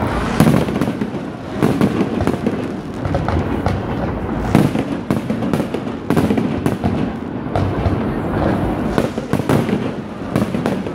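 Aerial fireworks barrage: many shell bursts and bangs in quick, overlapping succession, with crackling between them and no pause.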